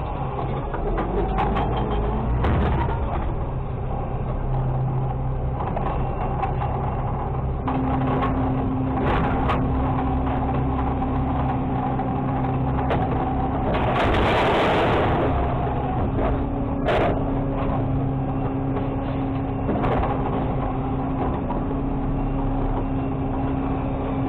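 Automated side-loader garbage truck working: the diesel engine and hydraulics run steadily, with a steady whine joining about eight seconds in and scattered clanks. About halfway through comes a loud rush lasting a second or two as a recycling cart's contents tumble into the hopper.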